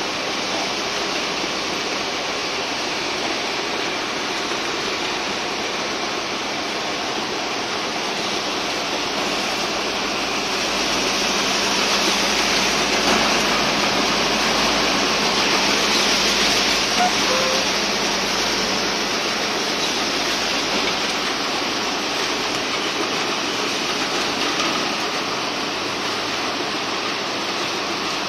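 Automatic corrugated-carton folder gluer running: a steady, even machine hiss from its belts, rollers and feed, a little louder around the middle.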